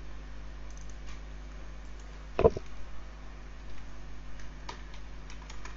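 Scattered faint computer mouse clicks and keyboard keystrokes, with one louder knock about two and a half seconds in, over a steady low electrical hum.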